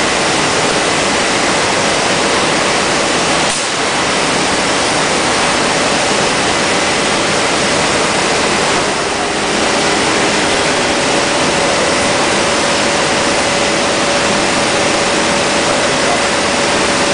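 CNC boring machine running vertical drills on a cabinet panel: a loud, steady rush of machine and dust-extraction noise with a faint high whine. A lower hum comes in about halfway through.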